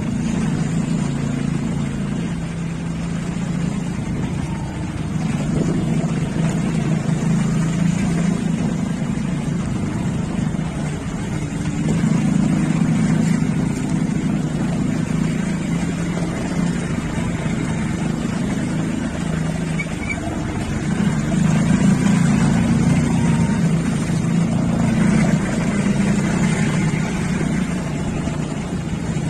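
Motorcycle engine running while riding, with wind rushing over the microphone. The engine hum swells and eases several times as the throttle changes.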